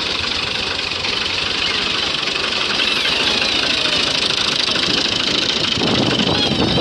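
New Holland 480 tractor's three-cylinder diesel engine running as the tractor drives over a field. It grows louder and fuller near the end as the tractor passes close by.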